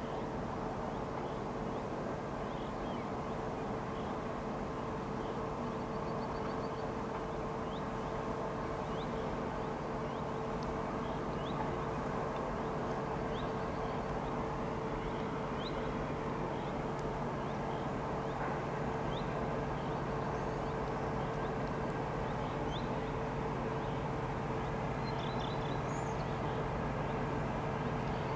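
Distant diesel train approaching, a low steady drone growing slightly louder, with birds chirping briefly every second or two.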